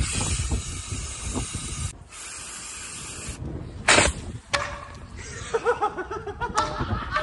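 Aerosol can hissing steadily as it sprays into a bottle, with a brief break near 2 s. About four seconds in, the bottle bursts with a single loud pop. A smaller crack follows, then sounds like voices.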